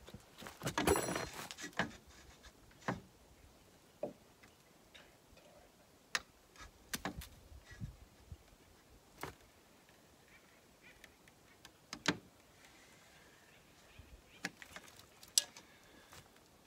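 Scattered light clicks and knocks, one every second or two, from hand work on window flashing and trim.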